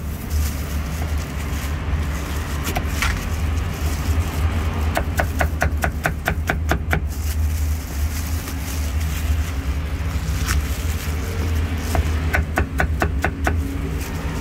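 Meat cleaver chopping on a round chopping block, in two quick runs of about four strokes a second, one about five seconds in and one near the end, with a few single strokes between. A steady traffic rumble runs underneath.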